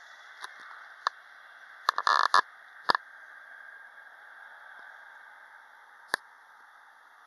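Faint, steady roar of a Boeing 737-800's CFM56 jet engines at take-off power, heard thinly through a phone microphone. Sharp handling knocks and rustles on the phone break in, loudest in a cluster about two seconds in, with a last click near the end.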